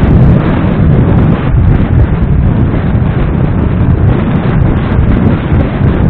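Wind buffeting the microphone of a camera on a moving motorcycle: a loud, steady, rough rumble with riding noise mixed in.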